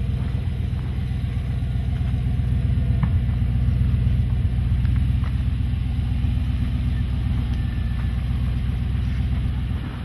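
Vehicle engine running steadily with a low rumble, with a few faint clicks over it.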